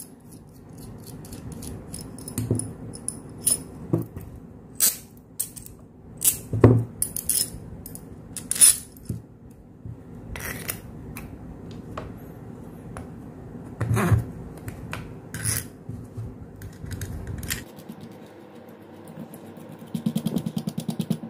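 Metal washers and a long steel bolt being handled, with scattered sharp clinks and knocks against wooden and plastic jig parts. Near the end, a quick run of rattling ticks as a nut is spun along the bolt's thread.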